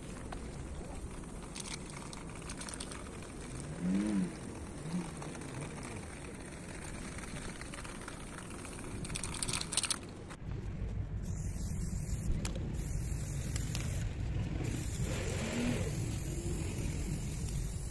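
Aerosol spray-paint can hissing in short bursts over a steady low outdoor rumble. A short wavering pitched sound comes about four seconds in.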